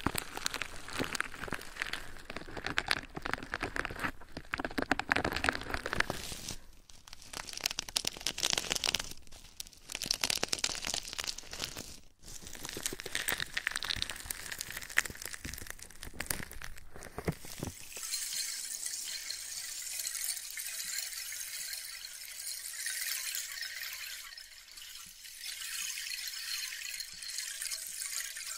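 ASMR trigger sounds worked right against a binaural microphone: dense crinkly crackling and rustling with many small ticks. About two-thirds of the way through it switches suddenly to a softer, steady, high fizzing hiss.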